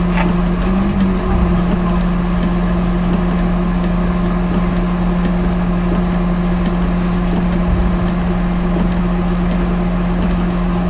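Aircraft towing tractor running steadily, heard from inside its cab: a constant low hum with no change in pitch.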